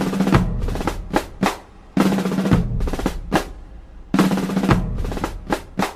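Percussion-driven theme music: a repeating pattern of drum hits, with a heavy hit and a low bass note about every two seconds and lighter strikes between them.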